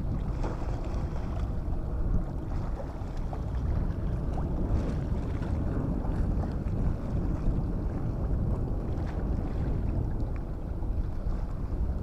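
Wind buffeting the microphone as a steady low rumble, over the wash of choppy harbour waves.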